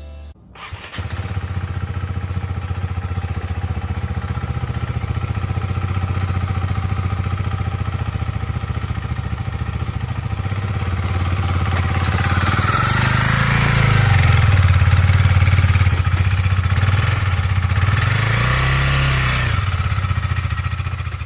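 KTM 390 Duke's single-cylinder engine running, starting about a second in. The revs rise and fall twice, a longer swell past the middle and a shorter one near the end, as the bike is ridden up the ramps into the van.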